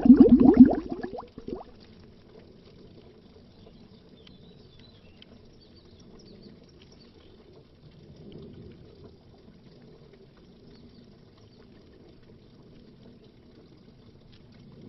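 Bubbles gurgling underwater, a dense run of bubbling for the first second and a half, then only a faint, low watery murmur until the bubbling starts again at the very end.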